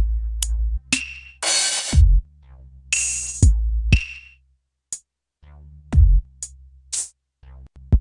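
Electronic drum-machine beat: deep kick drums, long noisy snare or clap hits and short hi-hat ticks over a low bass line, playing through compressor, exciter and reverb plugins on the master bus. The beat drops almost out for about a second just past the middle.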